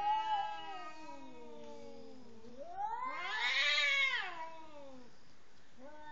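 Domestic cats caterwauling: long, drawn-out yowls that slide slowly up and down in pitch, one falling away over the first two seconds, then a louder one rising and falling in the middle, with another beginning at the end. This is the threat yowling of cats squaring off before a fight.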